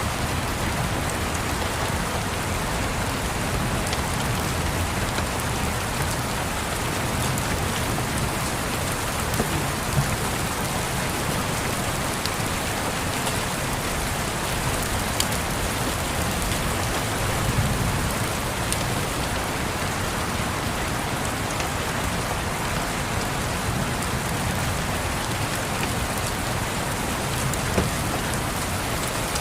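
Steady rain, an even hiss of rain falling on a surface, with a few scattered sharp pops on top.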